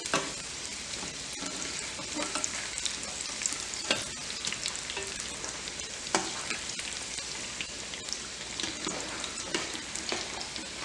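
Samosas deep-frying in hot refined oil in a kadhai on low heat: a steady sizzle, with a slotted metal spoon turning them and clicking against the pan a few times.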